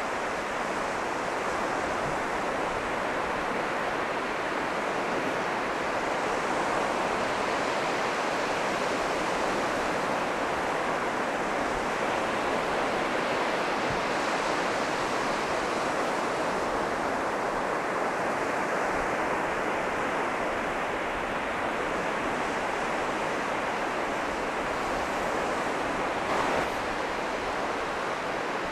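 North Sea surf breaking and washing up a sandy beach in a steady roar of noise, with some wind. A brief, louder burst comes near the end.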